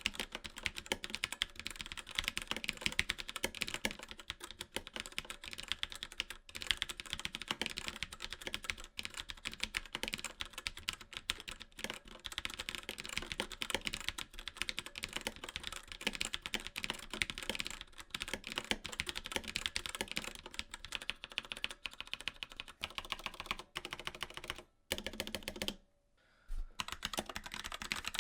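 Fast, continuous typing on a mechanical keyboard with linear switches, many key presses a second, with two brief pauses near the end.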